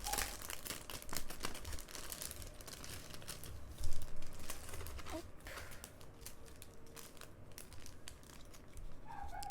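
Packaging crinkling and tearing as a squishy toy's wrapping is opened by hand, with a louder rip about four seconds in.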